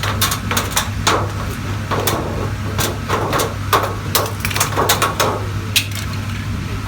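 Irregular sharp knocks and taps, about a dozen over five seconds, like tools striking hard parts during repair work, over a steady low hum.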